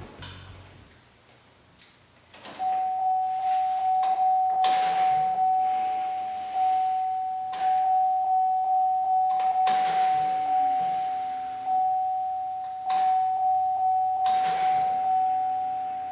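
Chevrolet Silverado pickup's dashboard warning chime dinging over and over, about three chimes a second, starting a couple of seconds in, with the key switched on and the driver's door open. A few sharp clicks or knocks sound over it.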